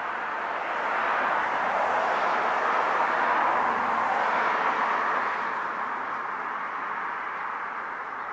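A road vehicle driving past, its tyre and road noise swelling over a few seconds and then fading away.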